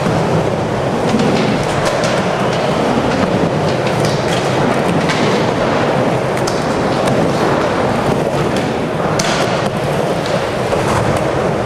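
Skateboard wheels rolling on skatepark ramps: a steady rumble broken by scattered clacks and knocks from the board.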